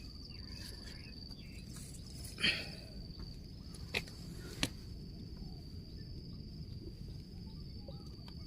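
Insects in the forest giving one steady, unbroken high-pitched drone. A few short clicks cut through it, the loudest about two and a half seconds in and two sharper ones around four and four and a half seconds in.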